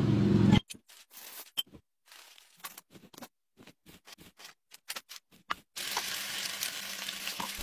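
Light scattered clicks, taps and paper rustles from hands handling a banknote and plates. From about six seconds in, a steady hiss.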